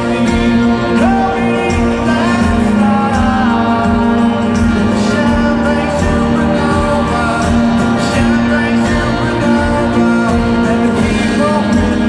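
Rock band playing live through a stadium PA, with a sung lead vocal over guitars, bass and drums.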